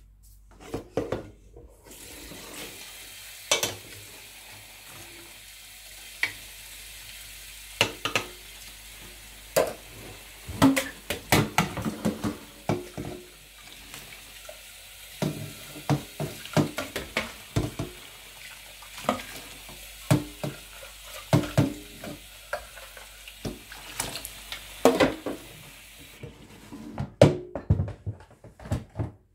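Water running into an enamel bowl of coarsely blended black-eyed beans in a stainless steel sink, stirred and swished by hand to float off the bean skins. Frequent irregular knocks and clatters of the bowl and hand come over the steady rush of water. The rush stops a few seconds before the end.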